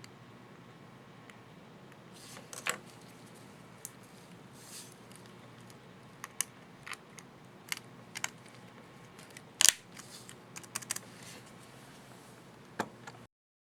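Small plastic clicks and snaps from a laptop Enter keycap being worked onto its retainer clips and pressed, irregular light taps with one sharper snap about ten seconds in. The sound cuts off abruptly just before the end.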